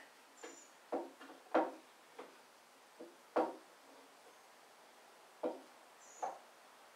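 Steel pipe clamp being handled and adjusted on a glued-up panel of pine boards: a series of about seven sharp knocks and clacks, irregularly spaced, two of them louder than the rest.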